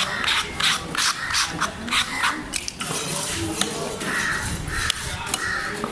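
A heavy cleaver-type fish knife scraping and cutting through skipjack tuna flesh in quick strokes, about three a second, for the first half. Crows cawing in the background near the end.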